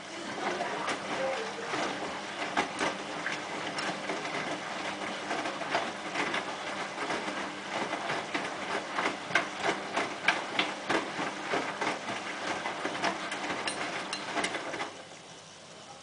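Edesa Eco Princess L511 front-loading washing machine tumbling its drum during a rinse: the motor runs while the wet load falls with many sharp clicks and knocks. The tumbling stops about fifteen seconds in.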